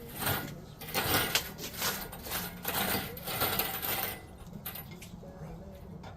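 Metal tools and parts clinking and clattering in repeated sharp strikes during the first four seconds, then fewer and fainter, over a steady low hum.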